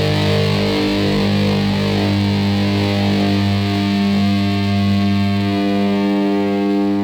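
Background music: a distorted electric guitar chord rings out and is held.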